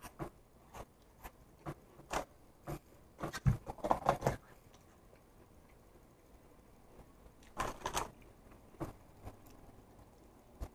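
Close-up eating sounds of a person eating pizza: scattered short clicks and smacks of chewing and mouth noises, thickest around three to four seconds in and again near eight seconds.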